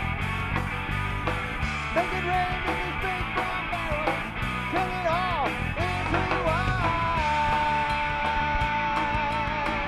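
Live rock band playing an instrumental break: electric guitar lead with bent notes over drums and bass guitar, settling about seven seconds in into one long held note with vibrato.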